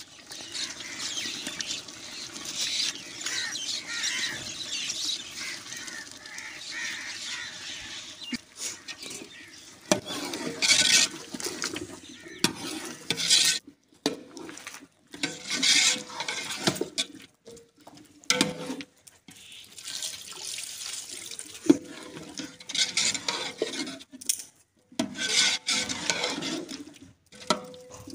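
Potato chunks frying in spiced oil in a large aluminium pot, stirred with a long steel ladle. A steady sizzle for the first ten seconds, then bursts of sizzling and scraping with each stirring stroke, with the odd knock of the ladle on the pot.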